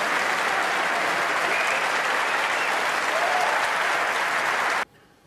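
Snooker arena audience applauding a shot with steady, even clapping that cuts off suddenly near the end.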